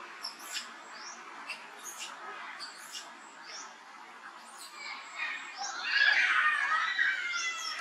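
Young macaques squeaking in short, high chirps. From about five seconds in, a louder wavering squeal builds.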